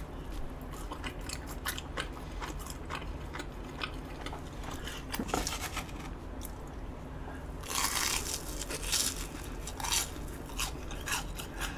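Close-up crunching and chewing of a crispy-battered Korean hot dog, with small crackles throughout and a louder crunchy bite about eight seconds in.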